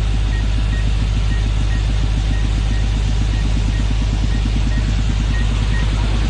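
Multirotor agricultural spraying drone's rotors running steadily in flight: a continuous buzzing drone with a heavy low rumble and a fast flutter.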